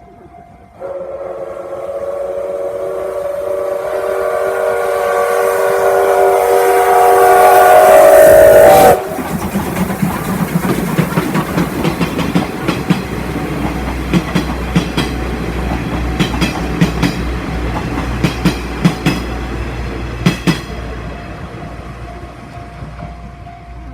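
SL Ginga steam locomotive (C58 239) giving a long blast on its steam whistle. Several tones sound together, growing louder over about eight seconds, then cut off sharply. The train then passes close by, its wheels clattering over the rail joints with a low rumble that slowly fades.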